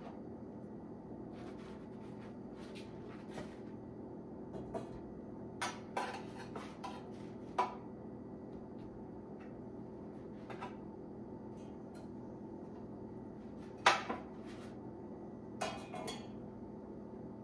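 A cooking utensil clinking and scraping against a pan a handful of times, loudest about fourteen seconds in, over a steady low hum.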